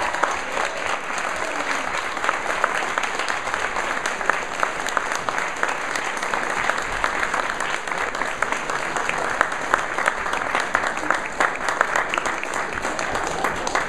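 Audience applauding steadily: dense clapping from a seated crowd.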